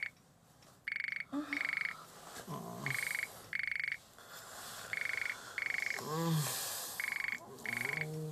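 Telephone ringing in short double rings, a pair about every two seconds, five pairs in all. A sleeper gives low groans midway and near the end.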